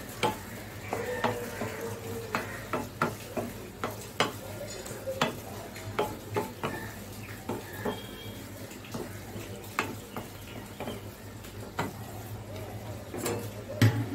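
Wooden spatula stirring and mashing thick taro-leaf and prawn paste in a metal kadai, scraping and knocking irregularly against the pan, over the low sizzle of the food frying on a low flame. Two louder knocks near the end as the spatula is set down in the pan.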